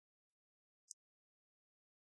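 Near silence, broken by two faint, very short high-pitched ticks, the second about a second in.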